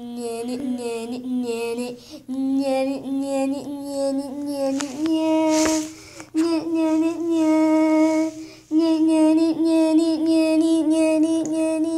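A high, child-like voice singing long held notes that step up in pitch twice in the first five seconds, with short breaks between phrases.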